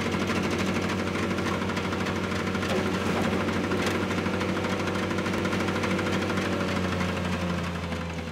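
Ventrac 4500 compact tractor with a front snowblower attachment, its engine running at a steady speed. The sound fades out near the end.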